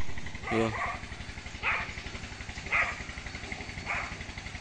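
Motorcycle engine idling with a steady low pulse, and a crow cawing four times about a second apart.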